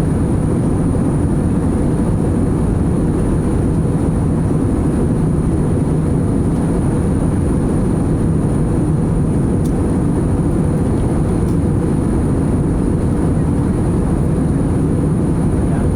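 Steady, loud cabin noise of a jet airliner in flight: engine and airflow noise that stays even throughout, with a thin high-pitched steady tone above it.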